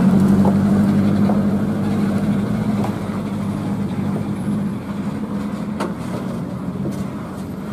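Diesel engine of a dump truck loaded with rock, running steadily under load as it drives away, slowly fading. A brief click about six seconds in.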